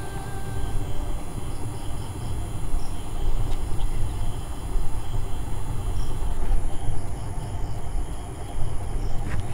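Steady background noise: a low rumble that swells and fades, with faint high chirps now and then.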